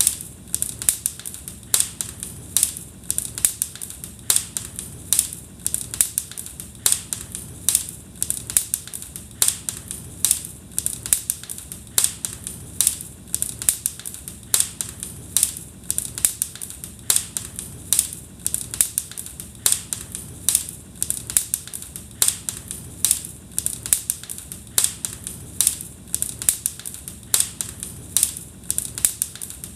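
Wood fire crackling in a fireplace: frequent sharp pops and snaps, several a second, over a low steady rumble of the flames.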